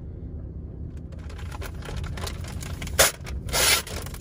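A sharp click about three seconds in, then a short scrape as a pull-out shelf carrying an air fryer slides out, over a steady low hum.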